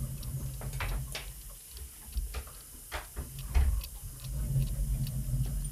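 Surgical ratchet clicking at uneven intervals as it is worked counterclockwise against a titanium dental implant still held firmly in the bone, over a low steady hum.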